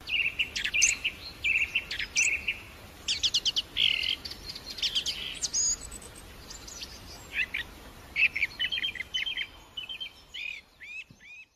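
Song thrush singing: short, varied phrases of clear high notes, several of them repeated in quick runs, ending with a few quick downward-slurred notes before the song stops.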